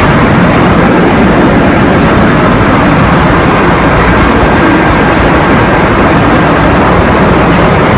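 Loud, steady din of running factory machinery on the production floor.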